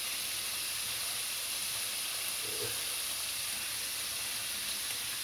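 Chicken drumsticks deep-frying in hot oil, a steady, even sizzle.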